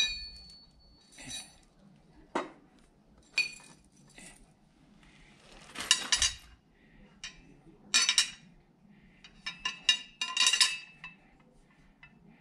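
Small metal lawnmower blade adapters clinking together as they are handled and sorted: a string of sharp clinks spread out unevenly, a few ringing on briefly.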